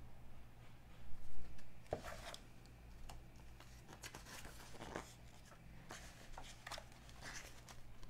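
Glossy magazine pages being turned and handled: several short papery swishes and rustles, the loudest about a second in.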